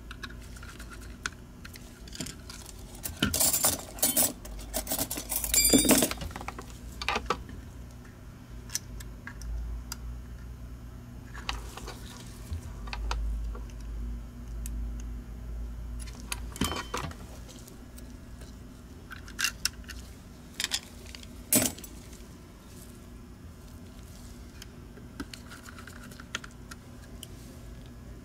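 Small plastic and metal parts of a Logitech G Pro Wireless mouse clicking and clattering as they are handled during reassembly, along with a screwdriver. The clicks come in scattered groups and are busiest a few seconds in. A steady low hum runs underneath.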